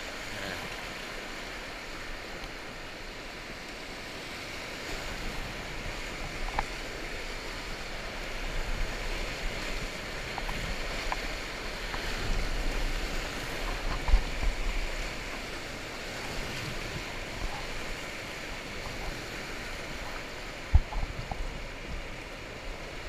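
Whitewater rapids rushing steadily around an inflatable kayak, with heavier low rumbling through the middle stretch and two sharp knocks, one midway and one near the end.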